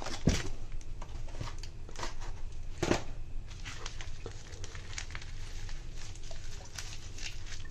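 Bubble wrap around two plastic bottles crinkling and crackling as they are handled, with two louder knocks, one just after the start and one about three seconds in.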